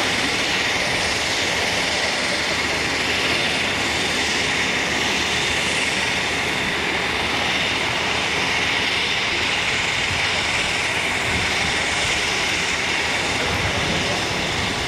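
Pilatus PC-12/45's single Pratt & Whitney PT6A turboprop engine and propeller at takeoff power as the aircraft climbs away: a steady, even noise with a high whine over it.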